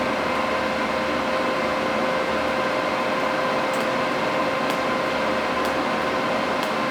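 TIG welding arc burning in a pinhole in steel sheet: a steady hiss with a constant hum, and a few faint ticks in the second half.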